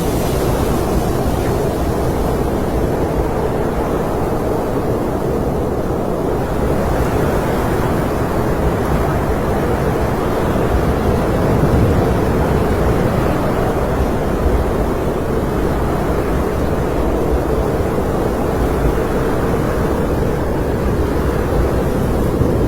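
Snowstorm wind: a steady, deep rush of wind noise with no breaks, swelling slightly about halfway through.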